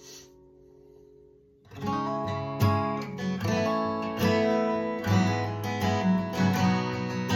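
Martin Custom Shop 0000 acoustic guitar, Adirondack spruce and mahogany, played: a chord fades out, then after a short pause strummed chords start up, about two seconds in, and carry on.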